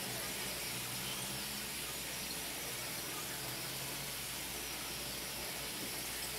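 Steady hiss of a pizza base frying in a cast-iron skillet on the gas stove.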